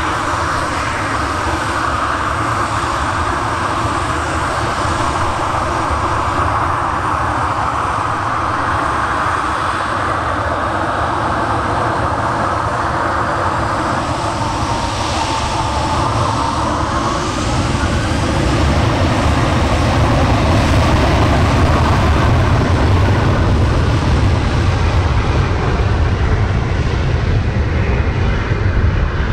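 Boeing 737 jet engines running, a steady roar that grows louder about eighteen seconds in.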